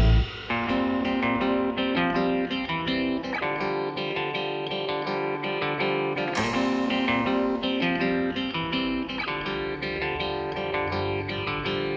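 Background music: a plucked guitar melody played softly.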